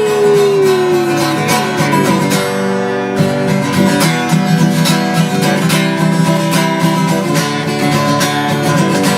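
Acoustic guitar strummed in a steady rhythm during an instrumental break. In the first second and a half, a long sliding note falls in pitch and dies away.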